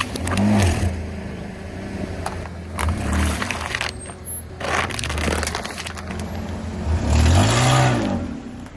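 Car engine revving up and down as the tyres roll over objects, with several bursts of crunching and scraping as things are crushed.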